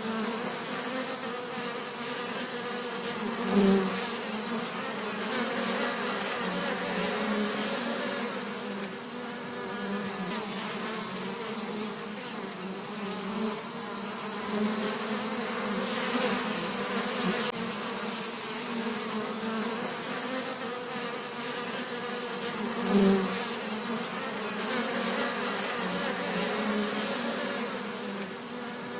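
Bee buzzing: a steady low, droning hum that swells briefly louder twice, about three and a half seconds in and again near twenty-three seconds.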